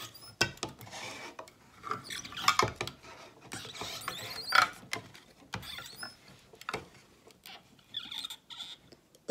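Manual can opener being cranked around a can lid: the cutting wheel clicks and scrapes against the metal rim in short, uneven turns with brief pauses.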